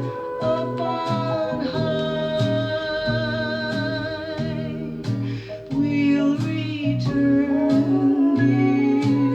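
Slow, retro-style ballad playing through loudspeakers: long wavering sung or lead lines over a steady, repeating bass pattern, with a brief dip about five and a half seconds in.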